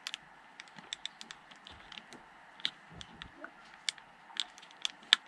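Light, irregular clicks and taps, well over a dozen, with a few soft low bumps near the middle: the cable and connector of a 4G antenna being handled and plugged into a USB modem.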